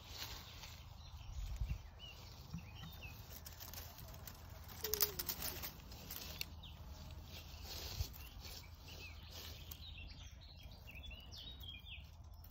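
Small birds chirping in woodland over faint rustling and snapping of twigs and dry leaves in the undergrowth, with a cluster of sharp snaps about five seconds in as the loudest sound.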